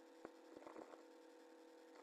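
Near silence: a faint steady hum, with a few faint short clicks in the first second.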